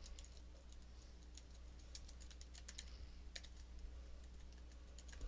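Faint typing on a computer keyboard: a run of light, irregular keystrokes.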